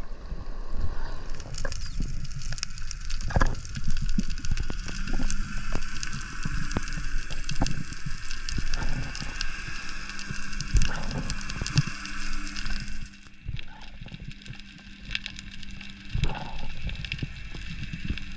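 Underwater sound over a rocky reef: dense, irregular crackling clicks over a faint steady low hum, quieter for the last few seconds.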